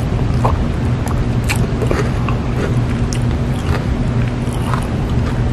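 Plastic spoon scraping and clicking against a paper sundae cup as soft-serve and cookie are scooped up, a scatter of small sharp clicks over a steady low hum.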